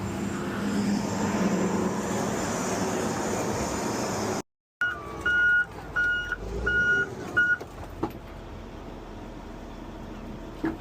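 Heavy truck engine running with a loud, noisy rush; after a short break, a backup alarm beeps four times over the quieter engine.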